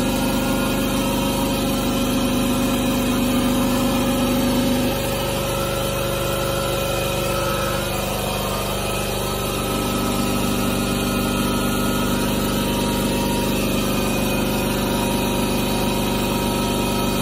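Electric air compressor running steadily, a loud motor drone made of several steady hum tones; one tone drops away about five seconds in.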